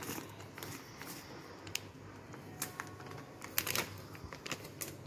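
Scattered light clicks and rustles of a steel mixer-grinder jar and its lid being handled before grinding, with no motor running. The loudest click comes about three and a half seconds in.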